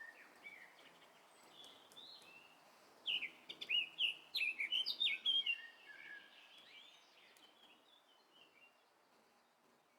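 Birds chirping over a faint background hiss, with a busy run of short chirps between about 3 and 5.5 seconds in, then thinning out.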